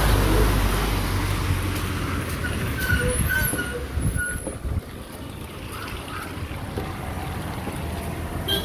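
Road traffic: a motor vehicle going by close, its low rumble loudest at the start and easing off over the first few seconds, then steadier, quieter traffic noise. A few short high beeps come about three to four seconds in.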